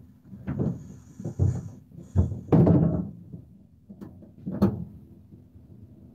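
Irregular knocks and thuds, the loudest and longest a little over two and a half seconds in, over a faint steady low hum inside a van cab.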